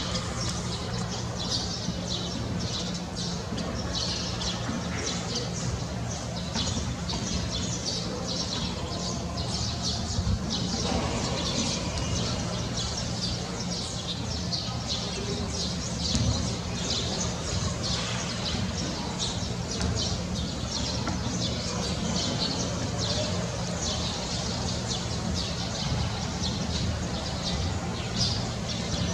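Sparrows chirping continuously: many short, rapid, high chirps overlapping throughout, over a steady low hum.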